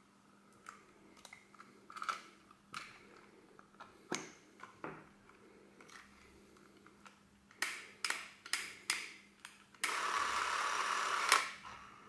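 Handling clicks and knocks from a Porst ZR 422 Super 8 film camera, made by Chinon, as its controls are worked, with a quick run of about six sharp clicks. Near the end its battery-driven motor whirs steadily for about a second and a half, then stops.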